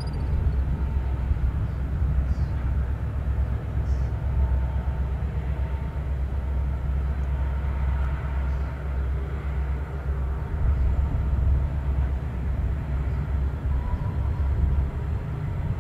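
Freight train rolling past: a steady low rumble with faint light ticks now and then.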